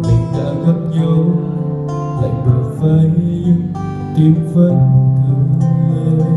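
Acoustic guitar strumming chords in a live performance, with regular strokes.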